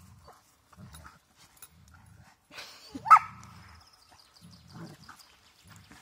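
Dogs growling in short low bouts while tugging at a stick between their jaws, with one short sharp bark about three seconds in.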